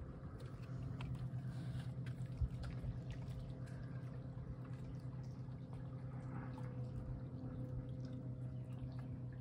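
Small waves lapping and dripping at a lakeshore under a steady low hum.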